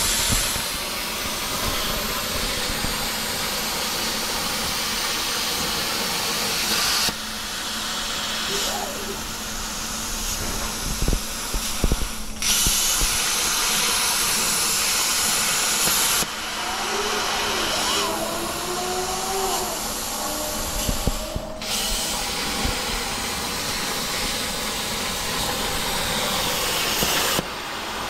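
Plasma cutter on a CNC plasma table cutting thin stainless steel sheet: a loud, steady hiss of the arc and air. It drops off abruptly three times, about 7, 16 and 27 seconds in, and starts again twice, as the torch stops and restarts between cuts.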